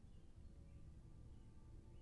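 Near silence: faint low background rumble with soft, high chirps recurring about twice a second.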